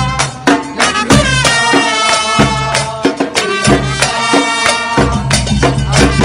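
Music: a football fan-chant song, a melody over steady drumming.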